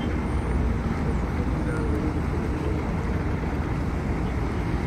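Steady low rumble of a passenger ferry's engine with a wash of water and wind noise, and faint voices in the background.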